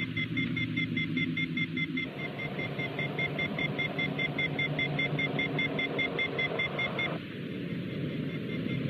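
Science-fiction sound effects: rapid electronic beeping, about five pips a second, over a low hum. From about two seconds in, the rushing drone of an Eagle spacecraft's engines joins and drops away about seven seconds in, leaving fainter beeps.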